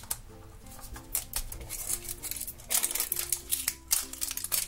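Plastic shrink-wrap and label crackling and tearing as they are peeled off a Fashems toy capsule, in a run of sharp crackles that gets louder from about three seconds in. Background music with short repeating notes and a bass line plays underneath.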